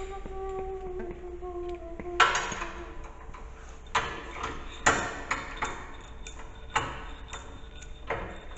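Irregular metal clanks and knocks from hand tools and steel snow-plow skid parts being handled and fitted, the loudest about two seconds in. A short held tone comes just before it.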